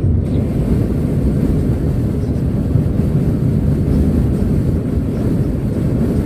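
Steady low rumble of a car driving at highway speed, heard from inside the cabin: tyre and engine noise on the road.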